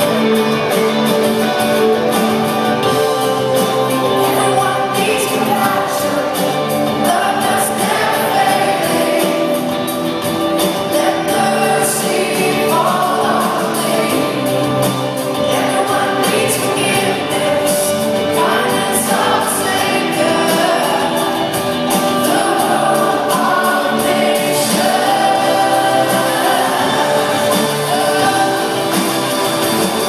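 Live worship band of guitars, bass and drums playing a congregational song, with voices singing the melody together.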